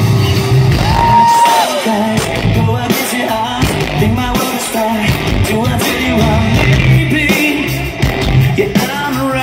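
A rock band playing loud and live: electric guitars, bass guitar and drums, with a voice singing over it.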